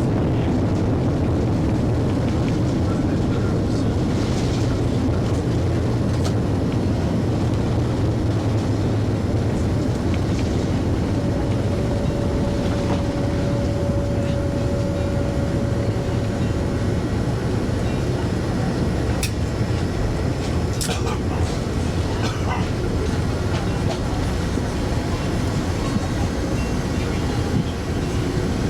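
Underground automated people-mover train between Madrid Barajas T4S and Terminal 4, running with a steady low rumble. A held tone sounds for several seconds near the middle, and a few sharp clicks come in the second half.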